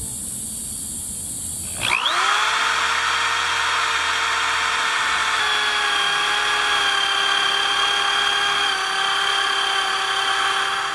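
Corded power drill with a half-inch bit spinning up about two seconds in, then running steadily as it bores a bolt hole through clamped pressure-treated lumber. Its pitch drops a little partway through as the bit bites. Before it starts, a steady high hiss.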